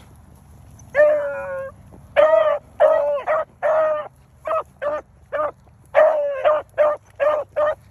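Beagle baying on a rabbit's scent trail, the voice of a hound running the track. One drawn-out bawl about a second in, then a run of short, quick chop barks, two or three a second.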